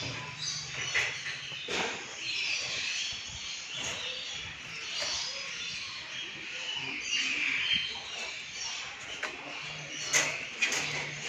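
Many aviary birds chirping and chattering together in a dense chorus, with sharp short calls now and then and a loud one near the end.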